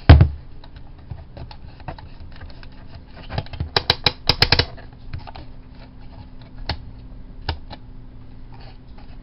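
Handling noise on a desk: a heavy knock at the start, then scattered clicks and taps, with a quick run of clicks between about three and four and a half seconds in, over a faint steady hum.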